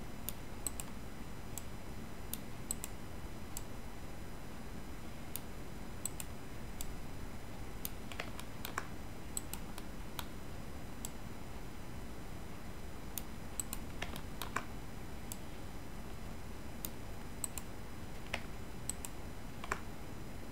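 Irregular, scattered clicks of a computer mouse and keyboard being operated, over a steady background hiss.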